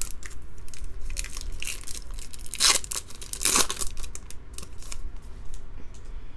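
A foil trading-card pack (2015 Bowman Draft) crinkling in the hands and being torn open, with two main rips a little under a second apart near the middle.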